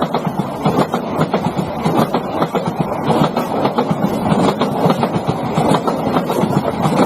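Train wheels running over the rails and their joints: a steady rumble with many rapid, irregular clacks.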